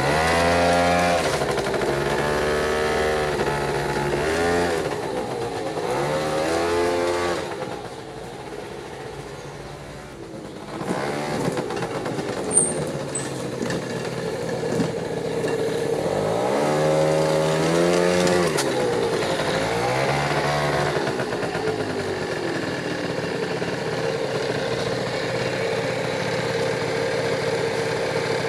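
Small scooter engine revved up and let fall back several times against the held rear brake, settling to a steady idle in between and near the end. It is run to find a vibration by the variator cover, which the owner traces to the centre stand.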